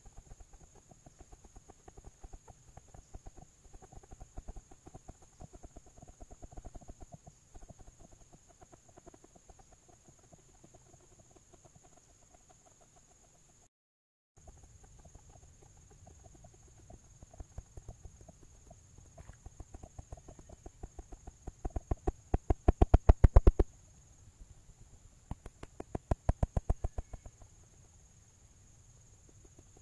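Rapid run of dull knocks, many per second, coming in uneven stretches, with two loud rolls of about two seconds near the end, the first swelling steadily louder. A brief dropout cuts the sound near the middle. The uploader presents it as Sasquatch drumming.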